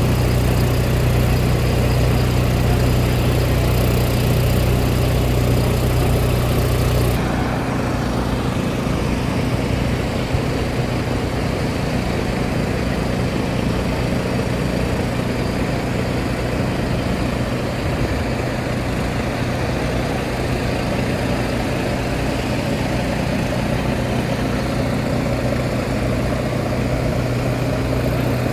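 Airport fire truck engine running steadily under load as it drives its water pump, with the hiss of spray. About seven seconds in, the deep hum and the hiss cut off suddenly, leaving a rougher, quieter engine running.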